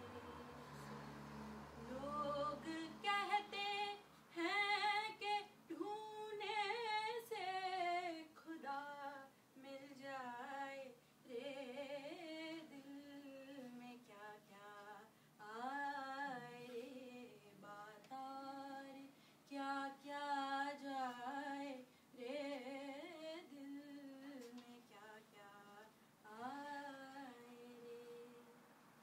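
A woman singing solo and unaccompanied, a slow melody full of pitch bends and wavering ornaments, sung in phrases with short pauses between them.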